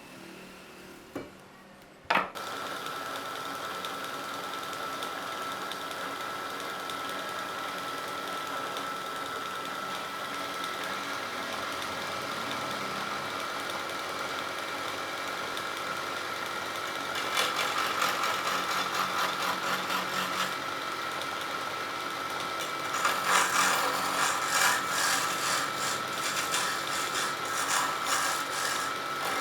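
Wood lathe starting with a sharp knock about two seconds in, then running steadily with a constant whine. Twice, from about seventeen seconds and again from about twenty-three seconds on, a turning chisel cuts into the spinning wood with a louder, rough scraping.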